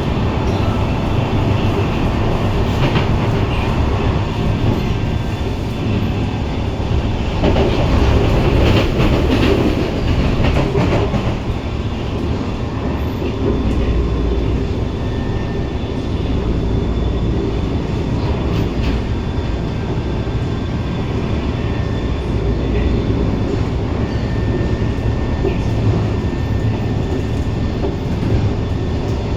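C151 MRT train running on the line, heard from inside the car: rumble and clatter of wheels on rail with a steady whine from the traction motor. The motor gives off a strong hissing that is heard as a strange sound. The noise swells about seven seconds in and settles again a few seconds later.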